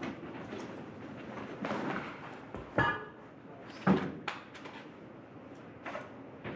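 A few scattered knocks and thuds, the loudest a sharp thump about four seconds in, with a brief pitched sound just before it.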